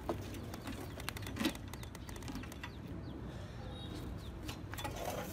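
Quiet yard background with a few light knocks, one stronger about a second and a half in, and faint bird chirps.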